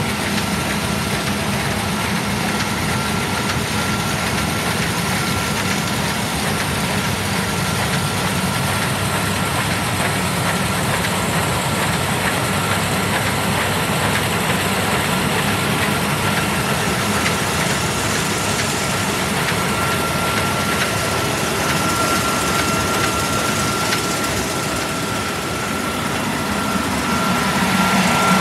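Combine harvester's diesel engine idling steadily, with a thin steady whine over the low running sound. It gets a little louder near the end.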